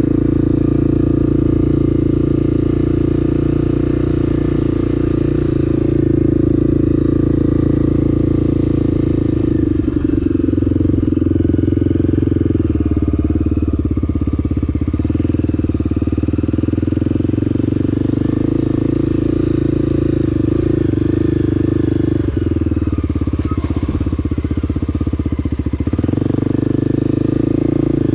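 Single-cylinder engine of a 1994 Honda XR250L motorcycle running under way, its note shifting about ten seconds in and again near the end.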